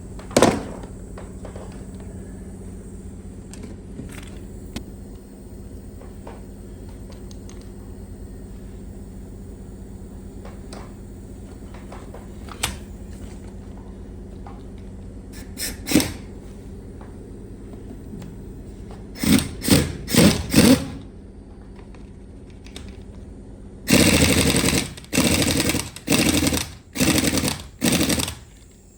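Workshop sounds over a steady hum: a sharp knock about half a second in and scattered clicks. Then a power tool runs in short bursts, first four quick ones, then five longer ones near the end.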